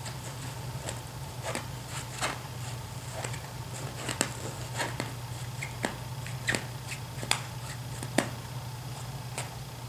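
Small, sharp clicks and taps at an irregular pace, roughly one or two a second, over a steady low hum.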